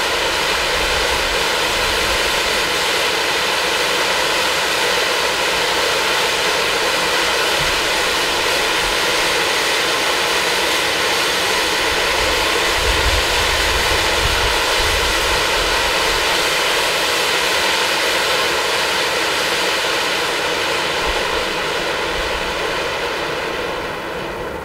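Black Cat Titanium Fountain firework burning with a loud, steady hiss of spraying sparks, fading near the end as the fountain burns down.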